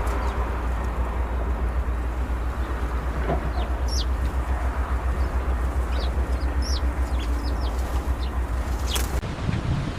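A steady low engine rumble, with birds chirping briefly over it a few seconds in. Near the end it cuts to a gustier, wind-like rumble.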